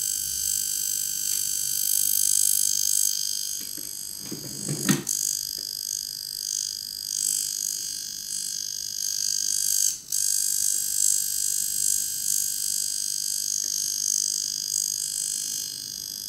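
High-frequency facial machine buzzing steadily through its neon-filled glass electrode held on the skin: a high-pitched electrical buzz that cuts out for a split second about ten seconds in. A brief low sound comes about five seconds in.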